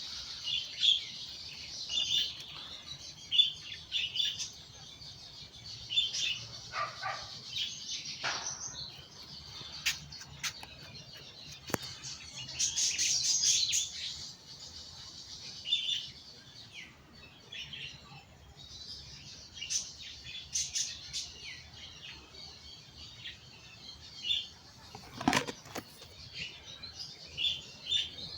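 Birds chirping in the countryside: many short, high calls repeating throughout, thickening into a denser cluster about halfway through. A single sharp knock comes near the end.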